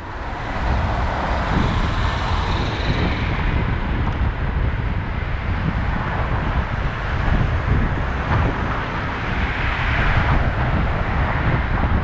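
Wind rumbling on a bike-mounted camera's microphone while cycling along a road, mixed with the steady noise of car traffic.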